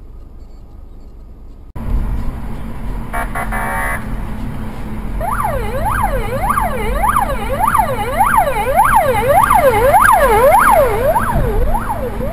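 Police car siren sounding in rapid up-and-down sweeps, about two a second, starting about five seconds in, over the low rumble of a car driving in traffic.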